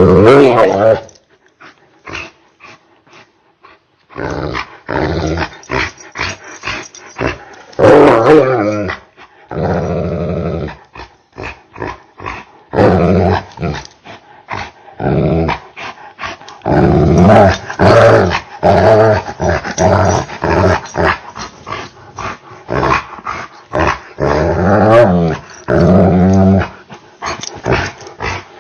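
Angry dog growling and barking, slowed down so the sounds are deep and drawn out. They come in long bursts separated by short breaks, with a quieter gap about two to four seconds in.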